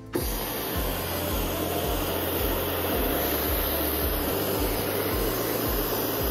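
Instant Pot Duo Crisp pressure cooker venting steam through its valve in a quick pressure release at the end of pressure cooking: a steady hiss.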